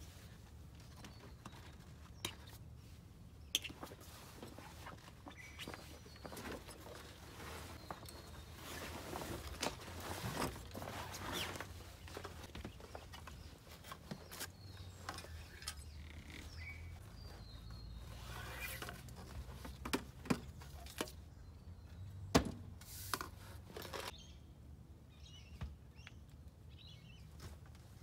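Gear bags being handled and unpacked: fabric rustling with scattered clicks and knocks, a few sharper knocks in the second half. Faint bird chirps can be heard near the end.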